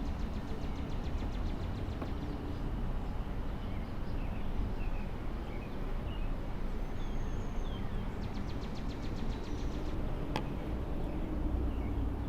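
Outdoor ambience: a steady low hum like a running engine or distant traffic, with birds chirping and a rapid high trill like an insect's, and one sharp click about ten seconds in.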